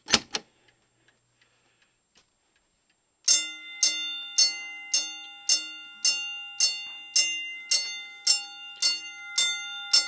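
Simplex manual fire alarm pull station pulled, with a sharp mechanical clack. About three seconds later a Simplex fire alarm bell starts ringing in single strokes in march time, about two strokes a second, each stroke ringing on as it fades.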